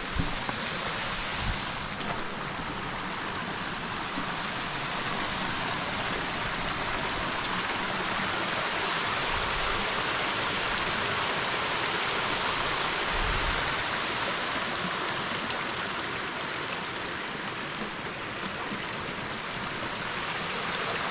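Water of a small creek waterfall running: a steady, even rush of water.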